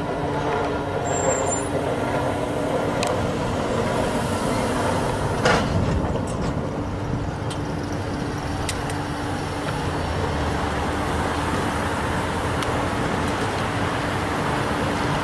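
Virginia Railway Express bilevel commuter cars rolling past: a steady noise of wheels on rail under a constant low hum, with a few sharp clicks and one louder clank about five and a half seconds in.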